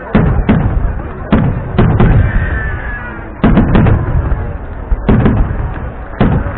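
A fireworks display exploding: about a dozen loud bangs, some in quick pairs and triplets, each trailing off in a low echo.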